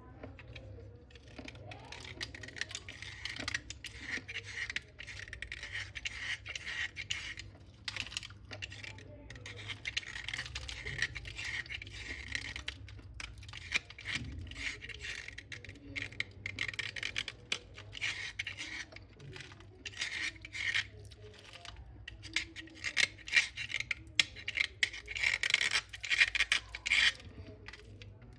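Slate pencils crunching: crisp, gritty crackling and scraping in repeated bouts, louder near the end.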